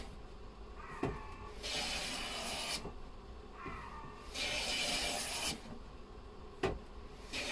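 Stanley hand plane taking shavings off the edge of a beech door, about one-second strokes: two full strokes and a third starting near the end, with a light knock of the plane before some of them. The plane is putting a slight leading edge on the door.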